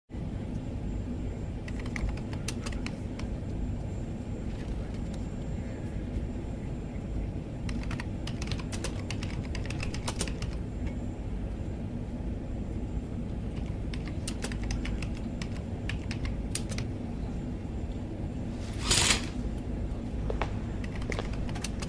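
Keys tapping on a laptop keyboard in quick clusters, over a steady low aircraft-cabin rumble. A short, louder rush of noise cuts in near the end.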